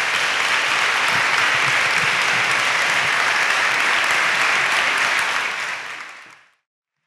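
Audience applauding steadily, then fading out about six seconds in.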